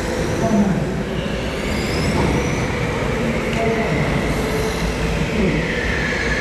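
Battery-electric RC oval race cars running laps: a steady whir of motors and drivetrains, with thin whines that rise and fall in pitch as cars speed up and slow down.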